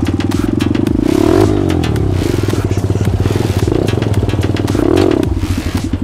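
Pit bike engine running up close, revving up a few times as it rides over a rough, stony dirt track, with clattering knocks from the bike over the bumps.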